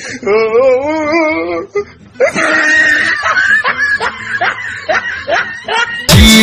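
Laughter: a wavering, high laugh in the first second and a half, then a run of short, rhythmic laughs. Loud music cuts in abruptly near the end.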